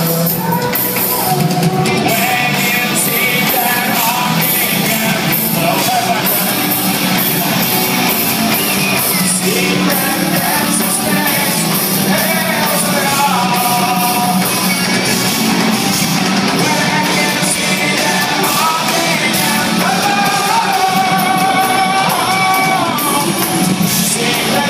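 Live rock band playing loud, with a singer's voice over the music.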